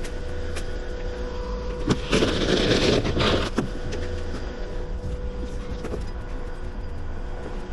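An engine running steadily, with a louder rushing noise lasting about a second and a half, starting about two seconds in.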